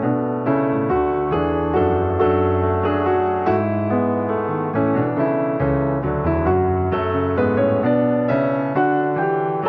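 Background piano music: a gentle melody of struck notes, several chords held under it.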